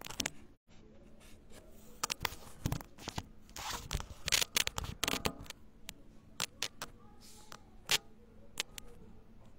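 Handling noise on a phone's microphone: rustling and scuffing with scattered sharp clicks, busiest in the middle, then a few lone clicks near the end.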